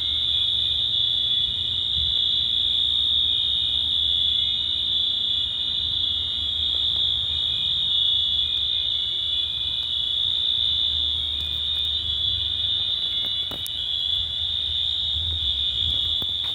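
Building fire alarms sounding: one steady high-pitched tone with no break in it.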